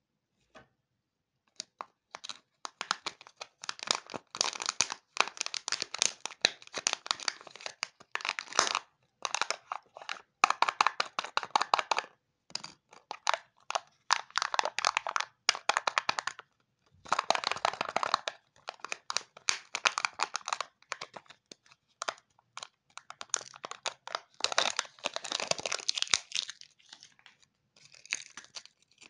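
Crinkling and tearing of Kinder chocolate egg wrappers being unwrapped by hand: the foil and plastic packaging crackles in close-up bursts of rapid crackles with short pauses, including the peel-off foil lid of a Kinder Joy egg being pulled away.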